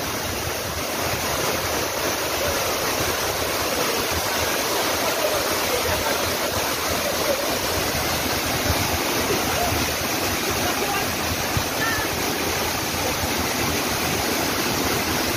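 Waterfall: water pouring over rocks into a pool in a steady rush, with faint voices of people bathing under it.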